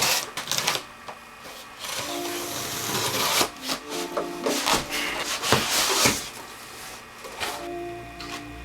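Handling noise: irregular rustling with a string of sharp clicks and knocks, over soft background music that comes back more clearly near the end.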